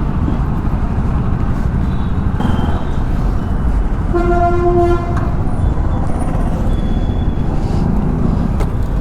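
Steady low road and wind noise of traffic, and about four seconds in a vehicle horn honks once, a single held tone lasting just under a second.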